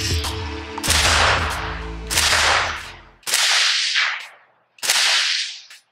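Shots from a suppressed Arsenal SLR-106CR, a short-barrelled 5.56 mm AK rifle, fired one at a time about every second and a quarter. Each shot is a sharp crack that trails off in an echo. Electronic music plays under the first shots and stops about three seconds in.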